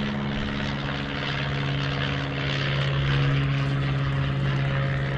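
A steady, droning engine hum, somewhat louder around the middle, over a rushing background noise.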